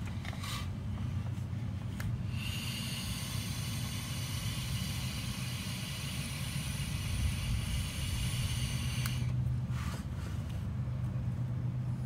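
A steady hiss of air for about seven seconds, starting about two seconds in, as vape smoke is blown through a vacuum line and escapes at a leaking intake manifold-to-block joint, over a steady low hum.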